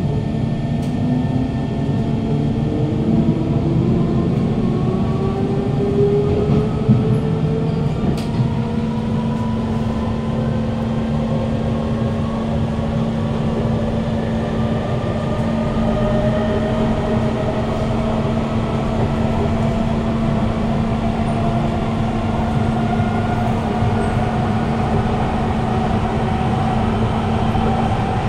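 Kawasaki Heavy Industries C151 train's GTO-VVVF inverter and traction motors whining as the train accelerates. Several tones climb slowly in pitch throughout, over a steady low hum and the rumble of the wheels, heard from inside the carriage.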